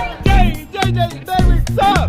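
Dance music with a heavy bass beat and a singing voice.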